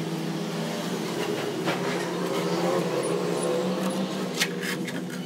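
A steady motor hum whose pitch wavers slowly, with a couple of sharp knocks as a heavy piece of cut truck-tyre rubber is handled on a wooden block.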